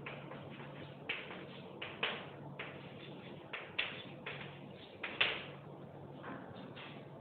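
Chalk writing on a blackboard: a string of short scratchy strokes and taps of the chalk, the sharpest a little past the middle, over a faint steady hum.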